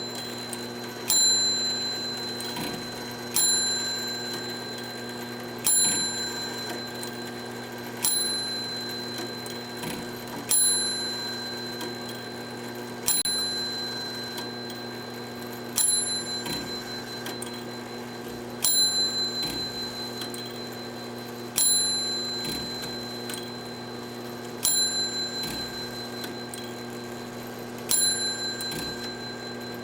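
A small bell struck about every two to three seconds, each strike sharp and ringing out before the next, the strikes coming slowly further apart. A low steady hum lies underneath.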